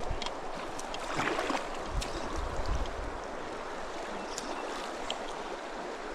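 Creek water flowing, a steady even rush, with a few faint clicks over it.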